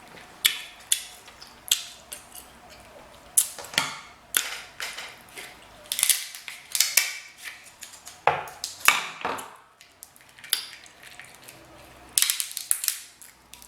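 Close-miked eating of king crab legs: an irregular run of sharp cracks and clicks from the shells being broken and picked apart, mixed with wet mouth smacking while chewing.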